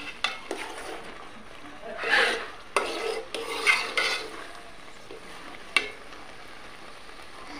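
A metal spatula stirs and scrapes a thick taro-leaf curry in a pot. There are a few wet scraping strokes in the middle and short sharp clicks of the spatula against the pot, one of them near the end.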